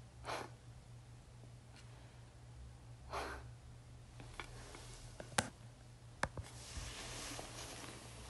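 Soft breaths near the start and about three seconds in, then a couple of small clicks and a soft rustle of bedding as the duvet is shifted, over a faint steady low hum.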